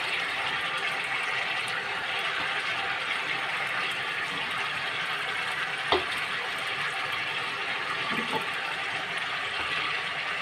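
Chicken pieces and tomato halves sizzling in a karahi over a gas flame: a steady hiss, with a single light knock about six seconds in.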